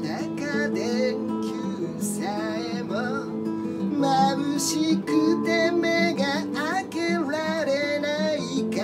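A man singing a Japanese song while strumming a nylon-string classical guitar.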